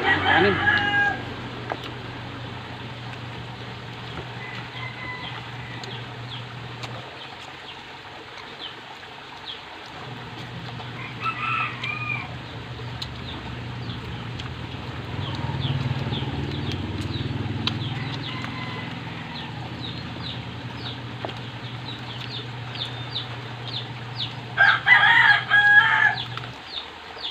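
Roosters crowing three times: once right at the start, once near the middle, and loudest near the end. A low steady hum runs underneath.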